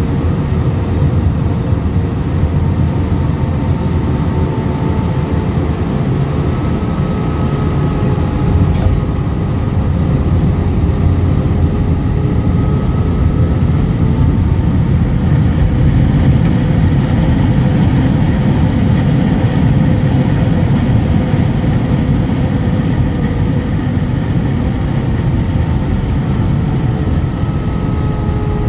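Jet airliner cabin noise during landing: a steady rumble of engines and rushing air with faint engine whines. There is a brief bump about nine seconds in at touchdown, then a louder rushing roar as the plane slows on the runway with its spoilers raised.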